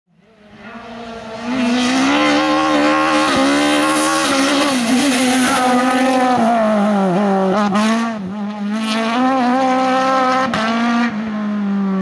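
Race car engine running at high revs. Its pitch dips and climbs back several times, with sharp cracks at the dips. The sound rises in over the first second and a half.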